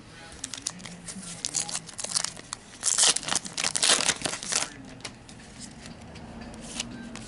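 Foil wrapper of a trading-card pack crinkling and tearing as it is opened by hand: a run of sharp crackles, loudest in the middle, then fainter and sparser crinkles near the end.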